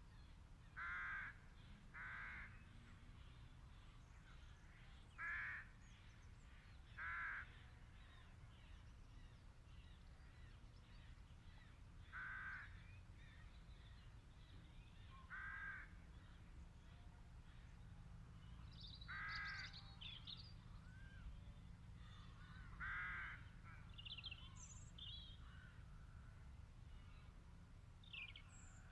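Faint bird calls, about eight single calls a few seconds apart, with a few shorter, higher chirps in the second half over a low steady background hum.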